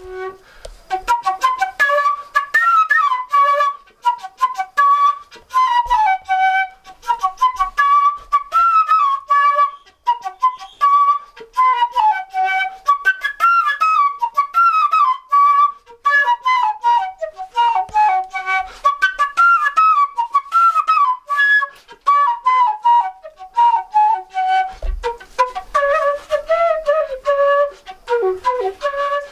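Handmade bamboo pífano, a transverse fife tuned in G, played solo: a lively melody of many short, tongued notes, sinking to lower notes near the end.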